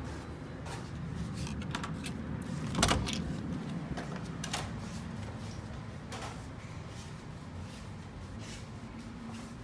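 Hotel room door being opened and walked through, with clicks and knocks of the latch and the door, the loudest about three seconds in, over a low steady hum.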